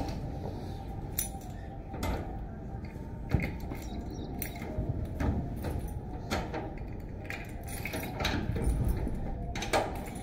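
Rugs being handled and shaken out over a wall: scattered rustling and flapping with sharp knocks about once a second.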